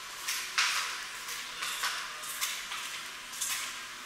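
Irregular scuffing footsteps on a hard floor, a loose shoe slapping and dragging with each step.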